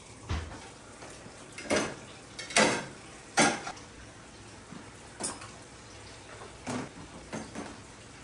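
Dishes knocking and clinking as they are handled at the sink and set into a dishwasher's racks. There are about eight separate sharp clatters a second or so apart, the loudest two near the middle.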